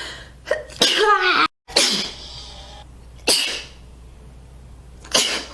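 A woman sneezing three times, each a sudden sharp burst about a second and a half to two seconds apart. The first comes after a drawn-out voiced wind-up.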